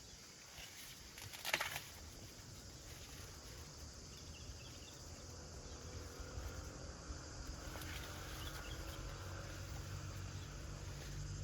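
Faint outdoor field ambience: one sharp snap about a second and a half in, a few faint high chirps, and a low steady hum that grows toward the end.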